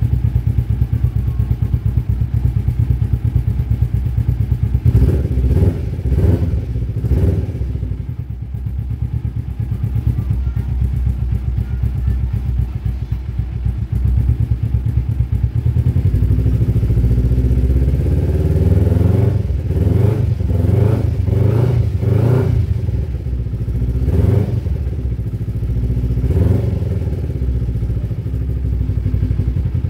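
First-generation carbureted Kawasaki Ninja 250 parallel-twin engine running on the stand during a warm-up, held at light throttle around 2,000 rpm. Engine speed rises and falls a few times, around 5 seconds in and again from about 19 to 27 seconds.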